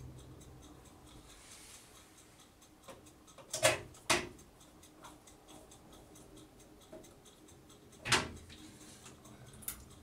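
Ratchet screwdriver with an extension bar driving motherboard screws into a PC case, with faint, even ticking and a few sharp metallic clicks, the loudest about three and a half to four seconds in and again about eight seconds in.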